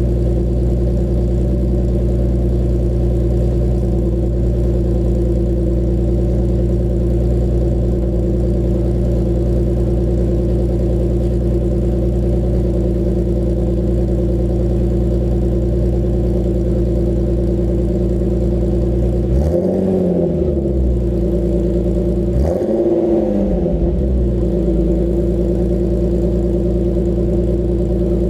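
Infiniti G37's 3.7-litre V6 idling steadily through a newly fitted Motordyne exhaust. Two short revs come about two-thirds of the way through, each rising and falling back to idle.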